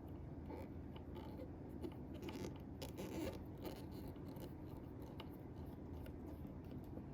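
Faint light clicks and scraping of small metal parts and a screwdriver being handled while a folding knife is taken apart, busiest around the middle.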